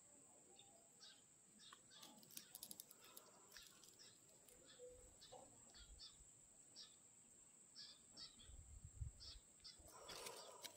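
Near silence: faint outdoor ambience with a steady high thin whine, scattered soft ticks and crackles, and a brief low rumble near the end.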